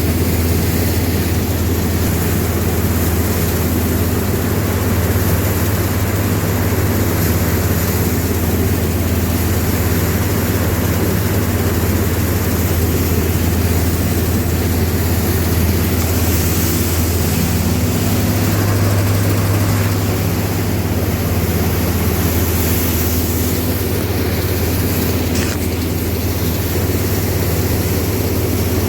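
Large engine running steadily at a constant speed: a low, even drone with hiss above it.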